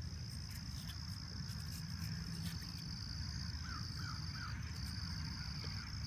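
Steady high-pitched trilling of insects in the grass, with brief breaks, and three quick chirps a little past halfway.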